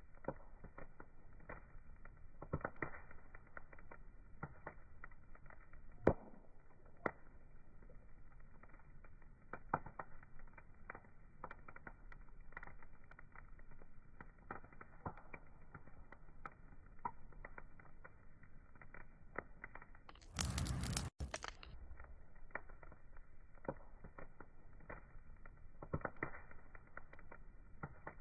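Wood fire crackling: irregular sharp pops and snaps of varying loudness over a low, muffled hiss. About two-thirds of the way through, a brief louder rush of noise cuts off abruptly.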